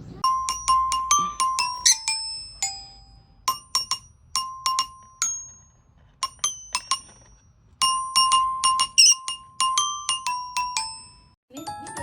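Bright ringing notes of a glockenspiel-like metal-bar instrument, struck one at a time in irregular clusters. The notes mostly repeat one pitch, with a few neighbouring higher and lower notes, and each note rings briefly and fades.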